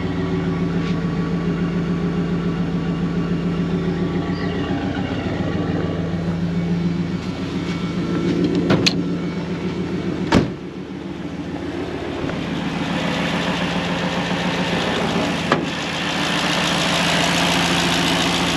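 Mercedes M113 5.0 V8 with a Garrett G40-1150 turbo idling steadily, with the exhaust valve opened. A few sharp clicks about halfway through, and from about two-thirds in a louder hiss comes in over the idle.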